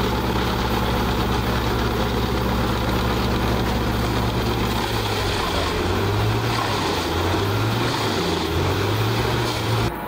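Truck-mounted wood chipper running loudly, its engine a steady low drone over a constant noisy haze; about halfway through, the low drone changes to a wavering note as a log goes in.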